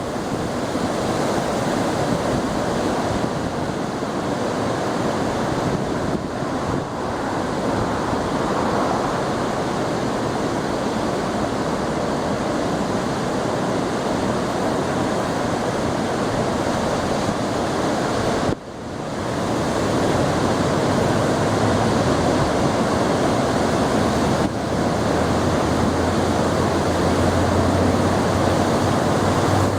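Heavy ocean surf from a large swell sent in by a distant typhoon, breaking in a continuous rush. The sound drops out sharply for a moment about two-thirds through. A low hum joins near the end.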